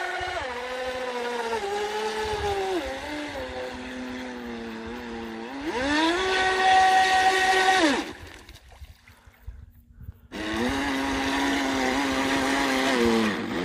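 Feilun FT011 RC speedboat's brushless motor whining as it runs on the water. The whine steps up in pitch about six seconds in and holds for two seconds, then drops away and stops. It starts again about ten seconds in, holds steady and falls off near the end.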